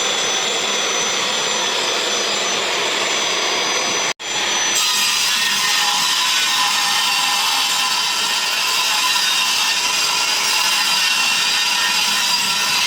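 A power tool running steadily while cutting MDF board, with a sudden momentary dropout about four seconds in, after which it resumes.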